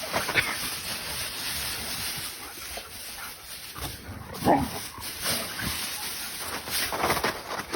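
A dog giving a short falling whine about halfway through, with a few fainter brief calls, over a steady hiss.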